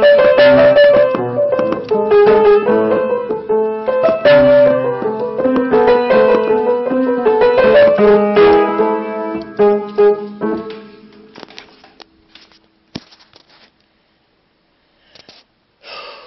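Piano being played, a melody over lower notes, ending about eleven seconds in on a chord that rings on and fades away. A few faint rustles follow near the end.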